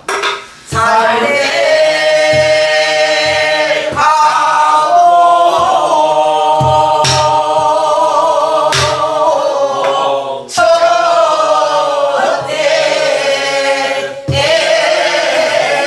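A group of voices singing a Korean Namdo folk song together in long, wavering phrases with brief breaths between them, and occasional strokes on buk barrel drums marking the rhythm.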